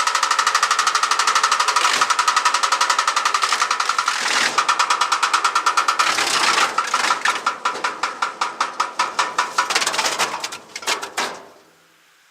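Stump grinder running with a rapid, rhythmic knock that slows as the cutting wheel winds down, stopping about eleven and a half seconds in. The knock points to a damaged or loosened cutting tooth.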